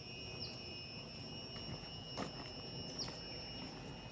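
A steady high-pitched electrical whine of two tones, the upper one dipping briefly twice, with a few faint tapping clicks of footsteps.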